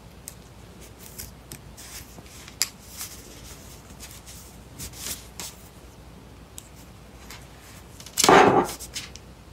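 Soft rubbing and small clicks of a wooden-tipped circular knitting needle and a metal tapestry needle against chunky wool yarn as the loops are slipped off one needle onto the other. About eight seconds in there is a single louder, brief sound.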